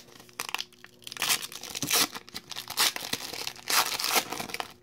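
Foil wrapper of a trading-card pack being torn open and crinkled in the hands, in irregular crackling bursts.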